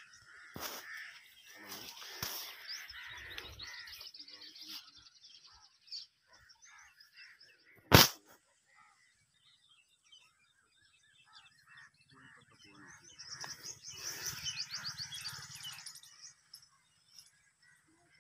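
Birds chirping and trilling in rapid high runs in two stretches, with rustling of leaves and grass around them. A single sharp knock about halfway through is the loudest sound.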